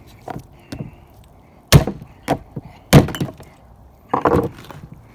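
A series of sharp knocks and thuds. Two much louder blows land about two and three seconds in, with lighter knocks between and after.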